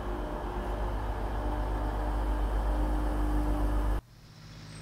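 Train at a station platform: a steady low rumble with a steady hum over it. It cuts off suddenly about four seconds in, and a quieter, different background sound follows.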